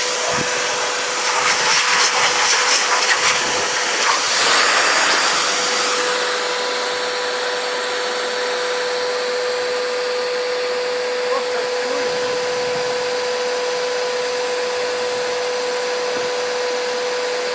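Construction vacuum cleaner running in blower mode, a steady motor whine over rushing air, used to blow bees off honey frames. The air rush is louder and uneven for the first few seconds, then settles to an even blow.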